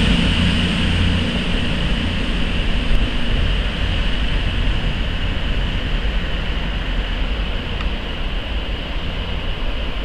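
Virgin Voyager diesel-electric trains running through on the main line: a steady diesel drone with rail noise. The low engine hum is strongest in the first second or so, then eases off.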